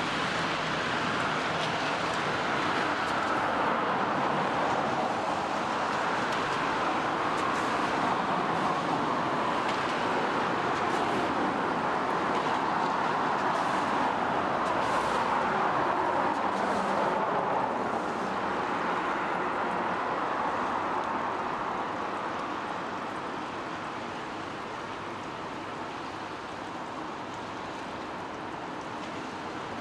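Road traffic passing on a rain-wet street: a steady hiss of tyres on wet asphalt that swells and eases as vehicles go by, growing somewhat quieter after about eighteen seconds.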